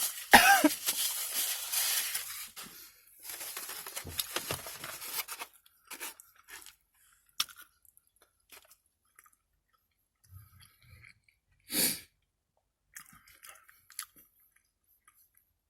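Close-miked chewing and crunching of fried food, dense for the first five seconds or so, then thinning to scattered small mouth clicks.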